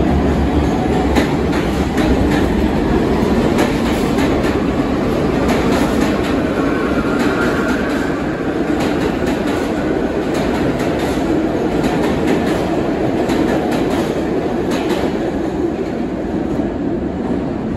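New York City Subway train running along the track and away into the tunnel: a steady rumble of wheels on rail with repeated clickety-clack over the rail joints, easing a little near the end.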